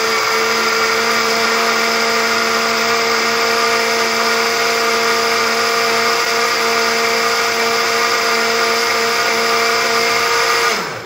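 Philips countertop blender motor running steadily, blending milk, Oreo biscuits and ice cream into a milkshake, with a steady whine. It switches off near the end and the motor winds down.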